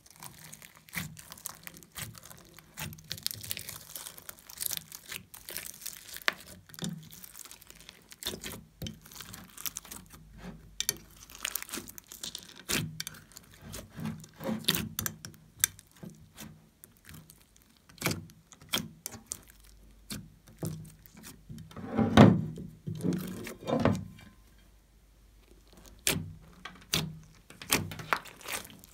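Hands squishing and kneading glossy slime loaded with foam beads, sequins and pom-poms: irregular sticky squelches, crackles and many small clicking pops, with a louder squelch about 22 seconds in.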